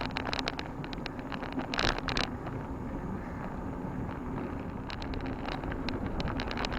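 A bicycle riding along: wind buffeting the microphone over a steady tyre rumble, with frequent short clicks and rattles from the bike and child seat.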